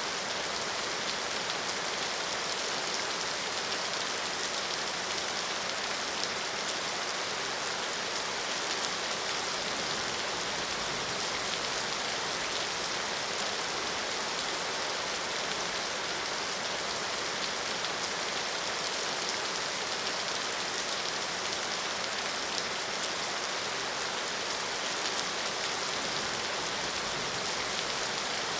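Steady rain falling, an even hiss of many drops with faint individual patters.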